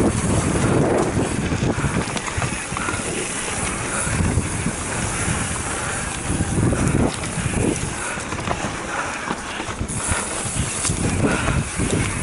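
Wind buffeting the microphone of a camera riding on a mountain bike down a rough dirt singletrack, with the tyres rumbling over the dirt and the bike rattling over bumps.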